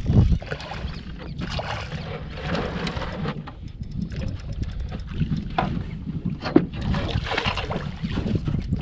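Wind buffeting the microphone over open water, with irregular small clicks and splashes of water at the boat's side; one sharper click about six and a half seconds in.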